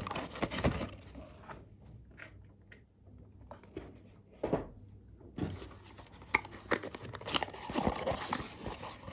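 Cardboard boxes being handled: scattered scrapes, rustles and light knocks of cardboard packaging, busier in the second half.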